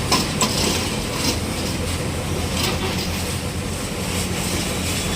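Steady mechanical rumble and hum, broken by a few sharp knocks in the first seconds and a couple more later on.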